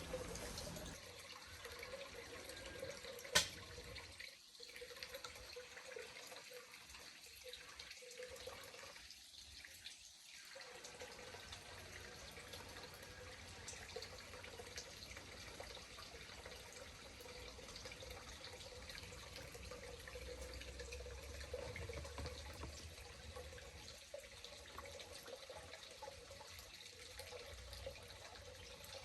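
Backyard pond waterfall trickling steadily and faintly, with one sharp click a few seconds in.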